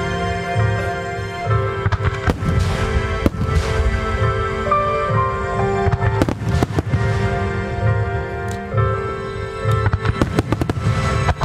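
Aerial firework shells from Nomura Hanabi Kogyo's display finale bursting with sharp bangs every second or two, coming thicker near the end, over music played along with the show.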